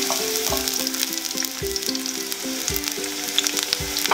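Sliced garlic sizzling in hot oil in a frying pan, with a few light clicks as more slices drop in near the start. Background music with a steady beat plays underneath.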